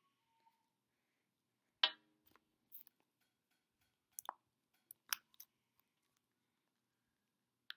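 Scattered sharp clicks and snaps of plastic toy packaging being handled and pried at, the loudest a snap about two seconds in, with a few lighter clicks after it.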